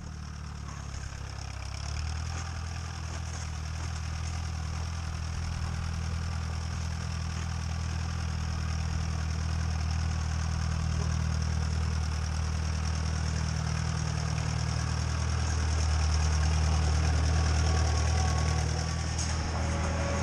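1939 Allis-Chalmers B tractor's four-cylinder engine running steadily as the tractor is driven, growing louder as it draws near.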